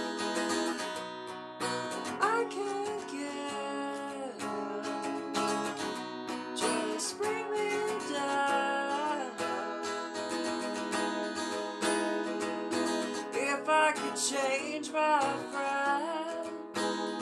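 Acoustic guitar strummed under a voice singing a melody.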